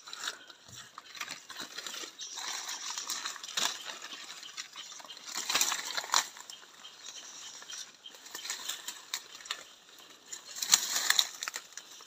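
Irregular rustling and crackling of leaves and brush, with louder crackles about halfway through and near the end.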